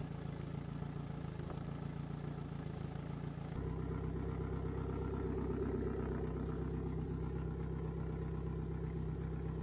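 Yamaha 150 hp four-stroke outboard, a four-cylinder, idling steadily on freshwater flush muffs while warming up, with water splashing onto concrete. About three and a half seconds in the sound jumps to a slightly louder, deeper idle.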